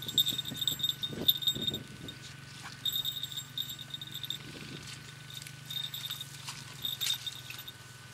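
Small falconry bells on a falcon jingling on and off as the bird shifts on the falconer's glove, in short clusters of bright ringing, with soft handling rustles.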